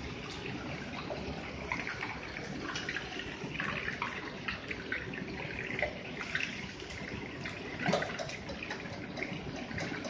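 Pork rib strips deep-frying in a wok of hot oil, sizzling and crackling, with a range tap running steadily into a pot on the back burner. A wire strainer scrapes and knocks against the wok, most sharply about eight seconds in.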